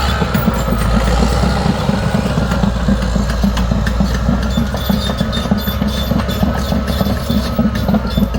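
Large 200 hp bulldozer's diesel engine running steadily as the machine travels, with a dense, rapid rattle over the engine.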